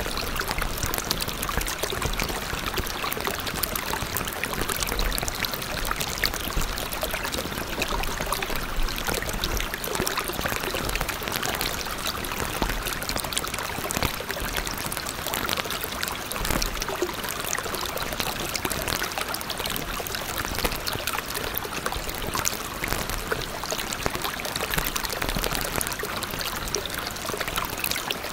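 Steady running, trickling water, an even hiss flecked with small splashes that goes on without a break.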